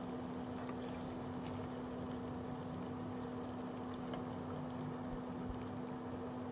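Sliced onions frying in hot oil in a metal pan, a soft sizzle with faint scattered crackles, under a loud steady low machine hum.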